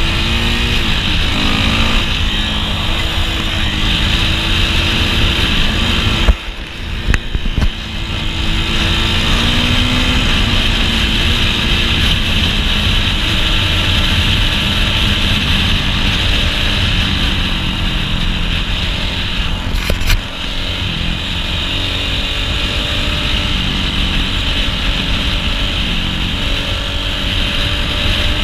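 Dirt bike engine running under way, its pitch rising and falling as the rider works the throttle. The engine note drops briefly about six seconds in and again around twenty seconds in.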